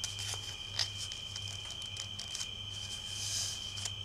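Folded dollar bill creased flat under fingertips: soft crinkling of the paper with a few small ticks in the first second and a brief rustle near the end. A steady high-pitched whine and a low hum run underneath.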